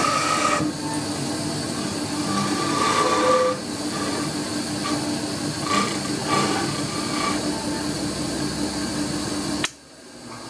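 A power tool running steadily while squaring up a block of stock, a noisy hiss with a whine that comes and goes as it cuts; it shuts off abruptly near the end.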